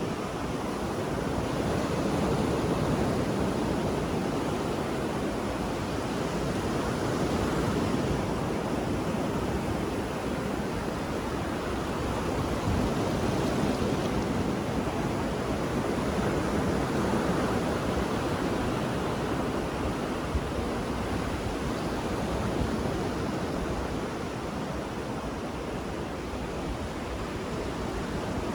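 Ocean waves rolling onto a shore: a continuous wash of surf that swells and eases every few seconds.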